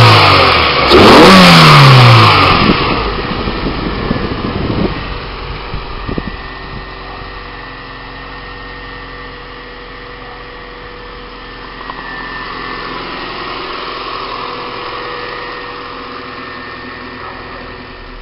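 Honda B16A DOHC VTEC inline-four engine blipped twice: a rev is already dropping at the start, and a second rev about a second in falls back over the next two seconds. It then settles to a steady idle, a little high because the engine is cold.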